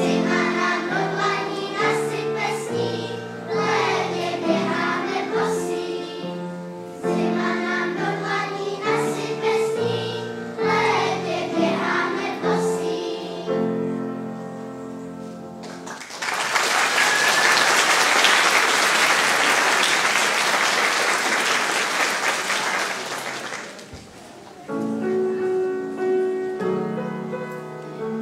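Children's choir singing a song with instrumental accompaniment, the song ending about halfway through. Audience applause follows for about eight seconds, then the instrumental accompaniment starts again near the end.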